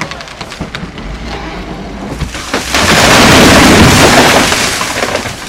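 A large tree coming down: a run of sharp cracks and snaps as it gives way, then a loud crash about two and a half seconds in as it hits the ground, dying away over the next two seconds.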